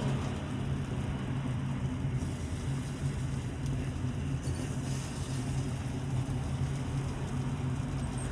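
A steady low mechanical hum with a noisy rumble underneath.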